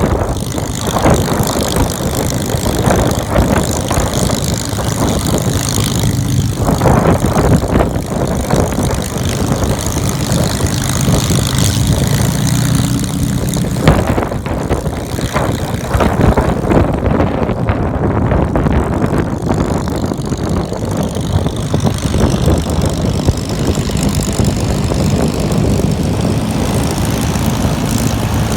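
Supermarine Spitfire Mk VIII's Rolls-Royce Merlin V12 engine running loud and steady on the ground, propeller turning.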